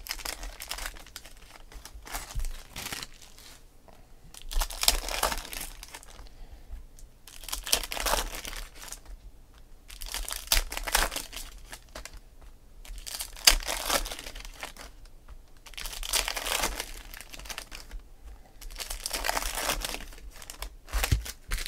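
Foil trading-card pack wrappers being torn open and crinkled by hand, in repeated bursts every two to three seconds.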